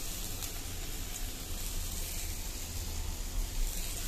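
Chopped tomatoes and onions frying in hot oil in a black kadai: a steady sizzling hiss.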